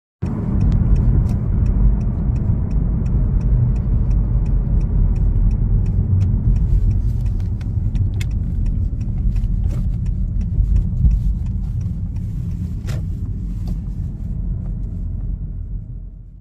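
Car cabin noise while driving: a steady low rumble of tyres and engine heard from inside the car, with a faint regular ticking about three times a second through the first half. The sound cuts off suddenly at the end.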